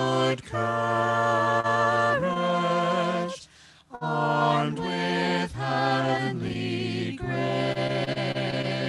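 A small group of mixed voices, two men and two women, singing a hymn in harmony without accompaniment, in long held phrases with a short breath break about three and a half seconds in.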